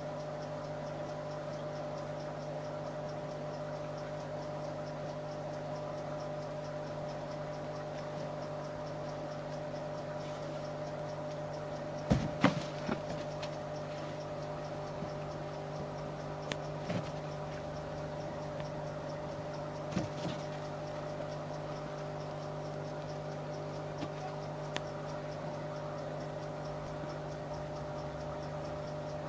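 Kitten batting and bumping a rubber balloon: a cluster of sharp taps about twelve seconds in, then a few lighter taps, over a steady low hum.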